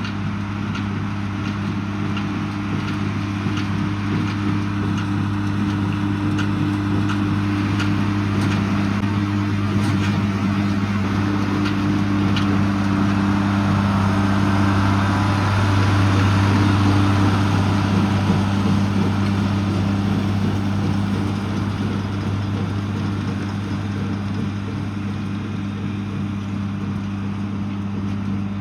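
John Deere 4040 six-cylinder diesel tractor running steadily under load while pulling a small square baler, its engine growing louder around the middle and then easing off again as it passes.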